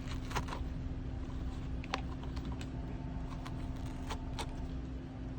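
A cat picking at a cardboard box with its teeth and claws, making a few light, scattered clicks and scratches over a steady low hum.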